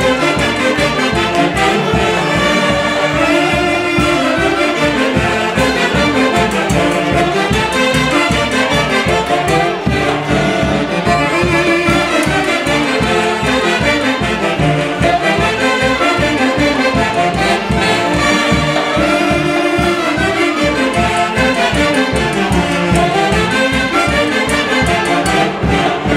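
Live saxophone band with bass drum and snare drums playing a dance tune, the saxophones carrying the melody together over a steady beat.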